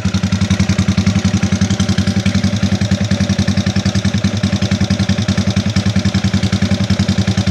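Honda Wave 125i single-cylinder four-stroke, bored out with a 56 mm piston, idling steadily through an open aftermarket racing exhaust. It gives a loud, even, fast-pulsing exhaust beat.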